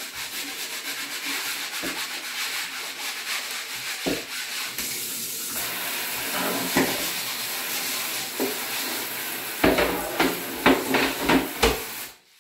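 Kitchen mixer tap running into a sink, the water splashing over utensils held under the stream, with a few sharp knocks of items against the sink near the end. The water stops abruptly just before the end.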